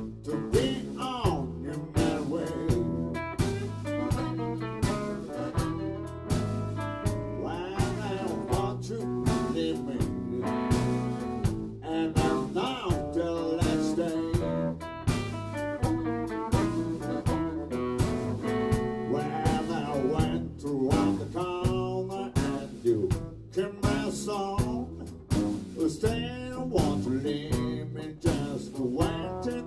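A small blues band playing live: electric guitar, bass and drums keeping a steady beat, with an amplified harmonica played cupped against the vocal microphone.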